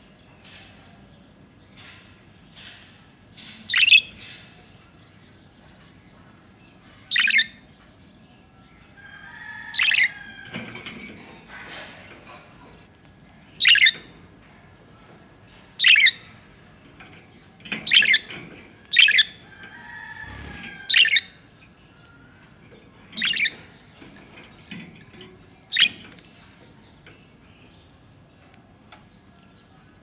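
Budgerigars calling: about ten short, loud, sharp chirps a few seconds apart, with softer warbling chatter between them around the middle.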